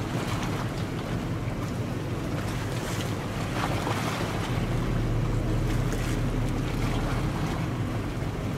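Fast passenger ferry MV Super Jet 19 running its engines with a steady low rumble as it manoeuvres slowly beside the pier, a little louder about halfway through, with wind buffeting the microphone.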